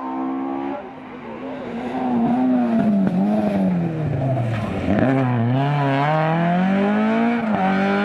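Rally car engine running hard and loud, its pitch sinking for a couple of seconds and then rising again, with brief breaks for gear changes about five seconds in and near the end.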